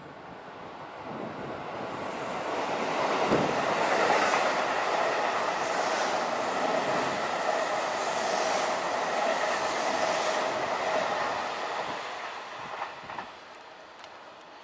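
Electric commuter train passing close by on the near track: a loud rush of wheels and running gear that builds over the first few seconds, holds for about eight seconds with a clickety-clack beat roughly every two seconds, and fades away near the end.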